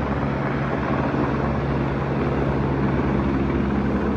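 Steady engine noise with a constant low hum.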